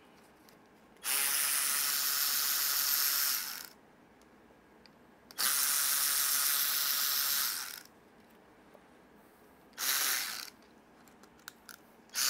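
Cordless electric ratchet with a 5/32 hex bit whirring as it backs out the screws that hold the pressure plate of a golf cart motor's electromagnetic brake. It makes two runs of two to three seconds each, then a short burst near the end.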